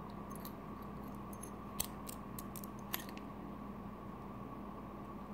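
Light, scattered clicks of a disassembled Medeco camlock's metal parts being handled, with two sharper clicks about two and three seconds in, over a steady background hum.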